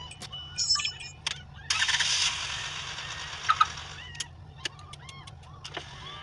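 Sound-effect clips played back: a few sharp clicks, then a burst of hiss that starts suddenly and fades over about two seconds, followed by short chirping tones and quick clicks.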